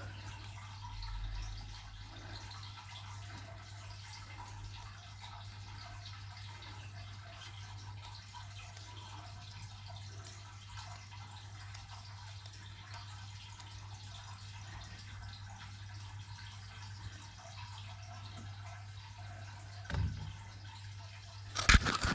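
Water steadily trickling and dripping, over a constant low hum. Sharp knocks come near the end.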